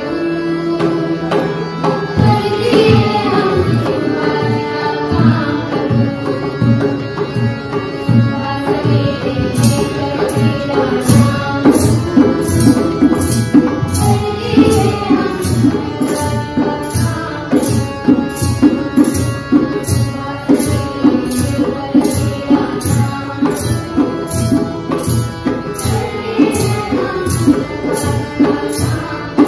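An Indian song: singing over a steady tabla beat. The beat comes in about two seconds in and grows brighter from about ten seconds in.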